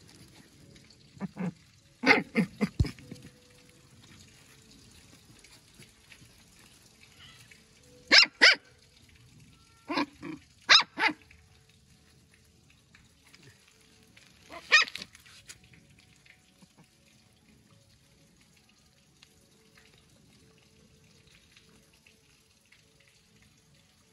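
A dog barking in short clusters of one to three barks, several times over, with quiet gaps between.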